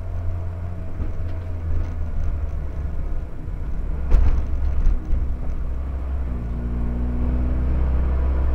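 Fiat 126p's air-cooled two-cylinder engine heard from inside the car, running at light throttle through a tight turn, with a single thump about four seconds in. From about six seconds in it pulls harder and gets steadily louder as the car accelerates onto the straight.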